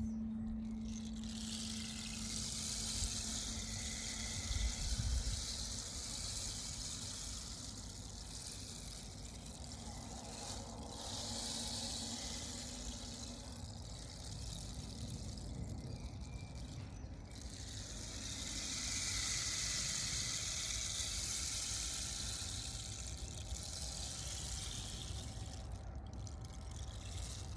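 A tongue drum's last low note ringing on and slowly fading away over the first dozen seconds, against a steady rushing hiss that swells and eases twice, with a low rumble beneath.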